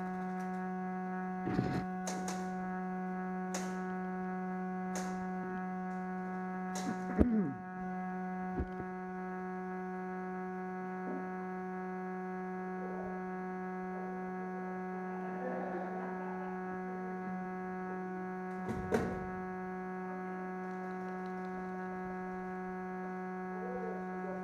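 A steady electrical hum with a buzzy edge runs throughout, overlaid by scattered sharp clicks or knocks: a cluster of about seven in the first nine seconds and one more about three-quarters of the way in.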